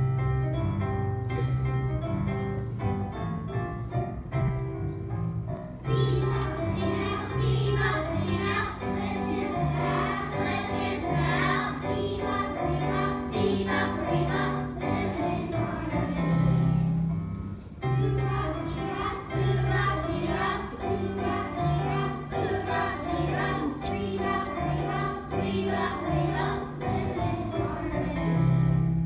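A song played for the children's group number, with a steady repeating bass line, and a choir of children singing along from about six seconds in, pausing briefly just before the eighteenth second.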